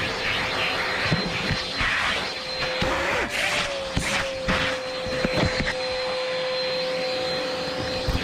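Vacuum cleaner running with a steady motor whine and rushing suction as the nozzle works over car carpet, with scattered clicks and knocks of grit and the nozzle. The whine wavers briefly about three seconds in.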